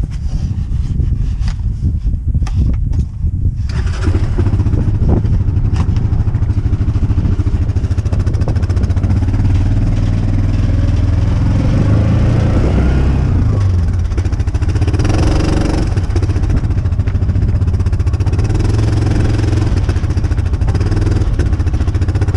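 Small farm vehicle's engine running steadily as it is driven, louder from about four seconds in.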